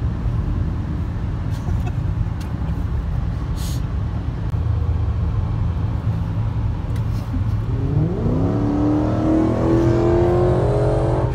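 Steady road and wind rumble from inside a car at motorway speed. About eight seconds in, a Dodge Challenger SRT's Hemi V8 opens up under hard acceleration, its exhaust note rising quickly in pitch and then holding high.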